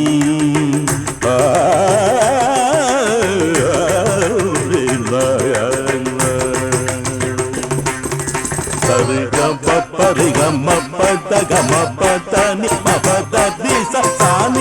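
Carnatic-style film song music: a heavily ornamented melodic line with wavering pitch, joined about nine seconds in by a fast, even percussion rhythm.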